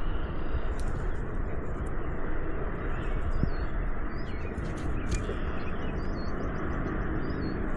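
Steady rushing noise of river water. Above it a small bird chirps short high notes over and over, about once a second. A few sharp clicks of handling break in.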